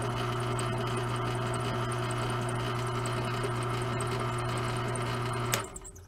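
A steady, even machine hum like a small motor running, which cuts off abruptly with a click about five and a half seconds in.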